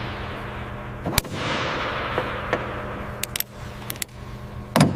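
Sharp metallic clicks and clanks over a steady low machinery hum. About a second in, a loud clank is followed by a hiss that fades over the next two seconds, and a few more sharp knocks come near the end. These are the sounds of lifting rigging being hooked up and tensioned.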